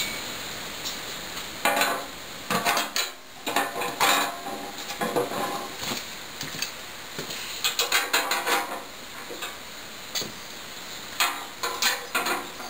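Socket wrench ratcheting and metal tools clinking in several short bursts as the oil pan bolts are run down and torqued onto the engine block.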